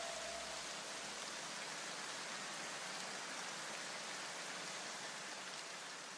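Faint, steady hiss. The last low hum of the ending music fades out in the first second or so, and the hiss slowly dies away near the end.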